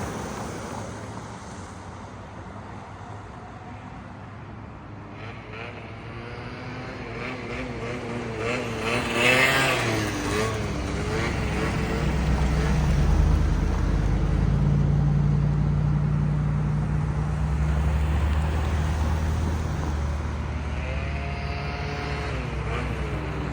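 Small Derbi motorbike engine running on a freshly rebuilt Dellorto carburetor, its speed wavering up and down and growing louder about halfway through.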